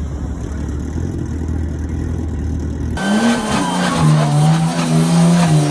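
Car engine with a steady low rumble; about three seconds in, an abrupt change to a car engine revving hard, its pitch rising and falling.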